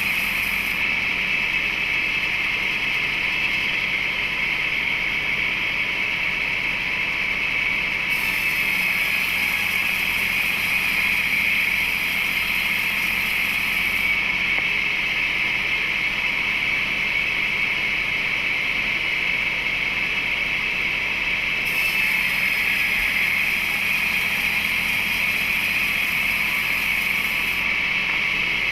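A motor or engine running steadily without a break, with no strikes or knocks.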